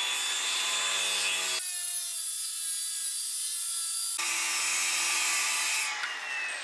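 Porter-Cable circular saw running with a steady whine, its blade buried in Formica-faced particleboard and drawn backwards through a cut lasting about two and a half seconds. It then runs free and winds down with a falling whine near the end.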